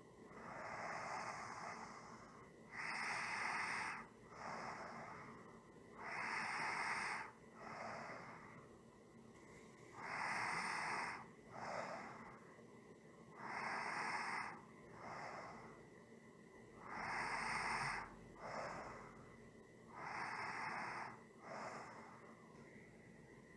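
A person breathing slowly and evenly, about one breath cycle every three and a half seconds: each cycle is a louder, airy breath of a little over a second followed by a shorter, softer one, then a brief pause.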